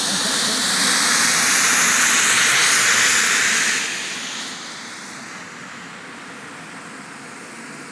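Turbine engine of an Elite Aerosports Picaro RC model jet, taxiing: a loud rush with a thin high whine that climbs in pitch. About four seconds in the turbine is throttled back and settles to a quieter, steady idle whine.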